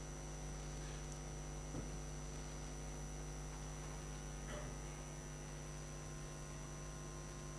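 Steady low electrical hum with its overtones over faint room tone, with a barely audible small sound about two seconds in and again about four and a half seconds in.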